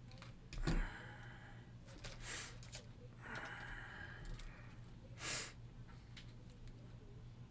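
A person sighing and breathing out audibly a few times, loudest about a second in, over a low steady hum.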